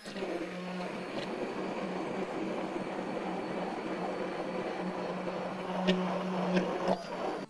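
Handheld immersion blender running in a tall plastic beaker, puréeing butternut squash with a little water: a steady motor hum under a wet churning, swelling briefly near the end before the motor stops.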